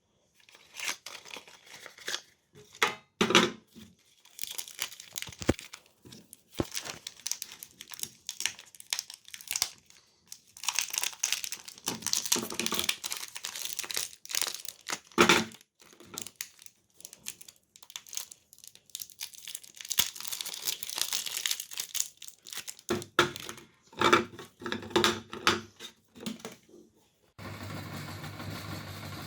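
Packaging crinkling and tearing in irregular rustles with a few sharper rips as it is handled. About 27 seconds in, an electric meat grinder's motor switches on and runs with a steady hum.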